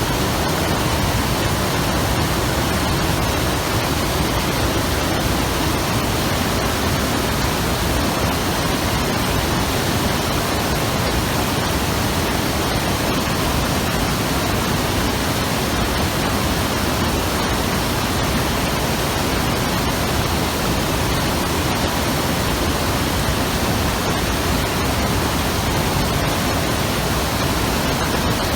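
Mountain river rushing over rocks: a loud, steady roar of water.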